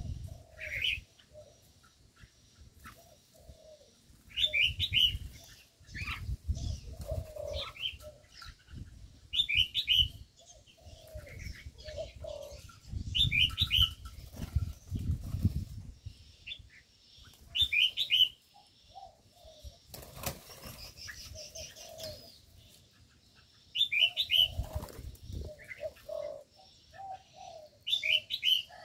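Aviary birds: red-whiskered bulbuls give short chirping phrases every four to five seconds, with low dove coos and bouts of wing-flapping between them.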